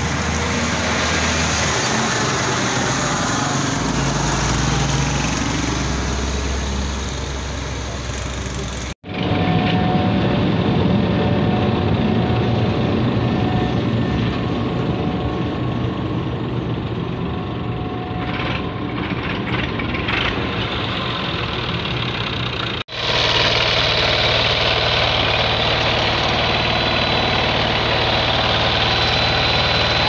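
Road-building machinery running steadily: first a street with a motor grader and motorcycles, then a road roller's diesel engine close by. The sound cuts off abruptly twice, about nine seconds in and again about three quarters of the way through, each time coming back as a different steady engine sound.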